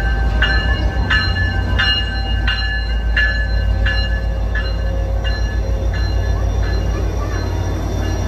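Diesel locomotive of an arriving passenger train, an F40PH-2C, passing close by: its bell rings steadily about one and a half strikes a second and fades out about five seconds in as the locomotive goes past, over the low drone of the diesel engine and the train rolling by.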